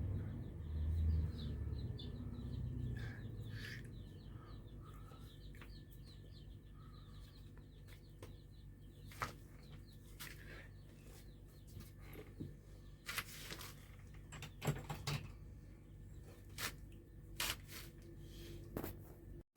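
Chicks peeping in rapid short high chirps, thickest in the first few seconds, with scattered sharp clicks and knocks later on.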